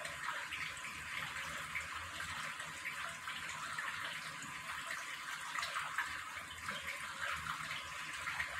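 Steady, even hiss of room background noise, like water running, with a few faint ticks.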